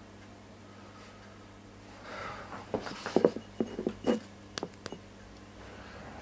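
A hand working at a glass ashtray: a quick cluster of light knocks and taps about three seconds in, then two sharp clicks, over a faint steady hum.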